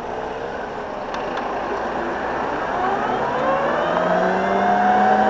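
Gogoro 2 Plus electric scooter pulling away, its motor whine rising slowly in pitch from a couple of seconds in over steady wind and road noise. The gentle climb is the soft acceleration of its power-saving mode.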